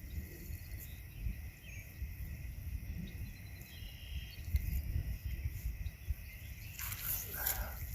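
Outdoor ambience: a steady high insect chorus with a few faint bird chirps over a low, fluctuating rumble. Near the end there is a brief scuffing noise.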